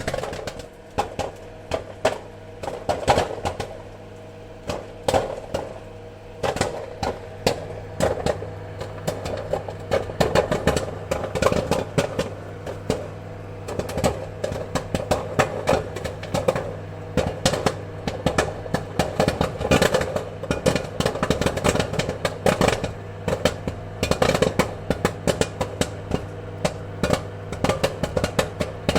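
Popcorn kernels popping in quick, irregular succession, several pops a second, over a steady low hum.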